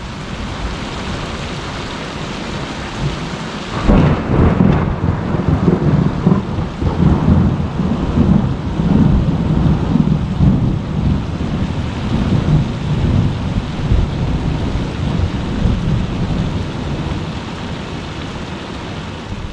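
Heavy rain falling steadily. About four seconds in a crack of thunder breaks into a long, low rolling rumble that slowly fades.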